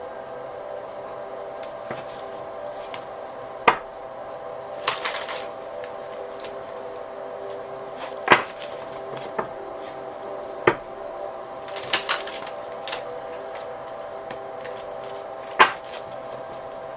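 Tarot cards being handled on a table: about half a dozen sharp taps as cards are knocked or set down, and two short rustles of shuffling, over a steady background hum.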